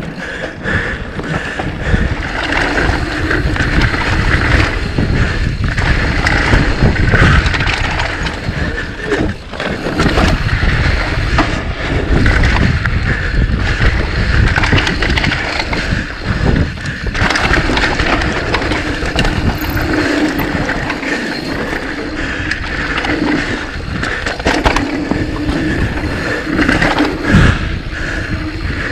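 Mountain bike being ridden on a dirt trail: a steady rumble and rattle of the bike over rough ground, with many sharp knocks from bumps.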